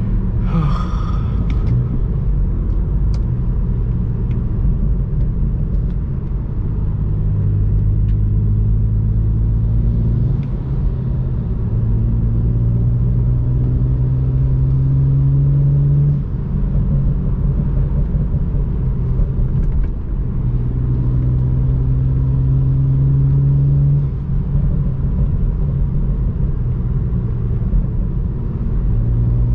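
BMW N54 twin-turbo inline-six engine pulling the car, heard from inside the cabin. The engine note climbs slowly in pitch and drops at each upshift, several times. It is running smoothly with no misfire.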